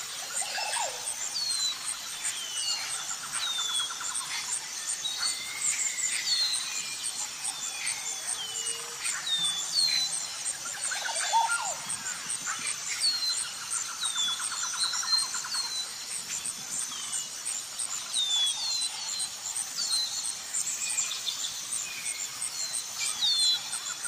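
A chorus of wild birds calling, mostly short high chirps that sweep downward and repeat every second or so, with buzzy trills now and then. Under them runs a steady high insect-like hum.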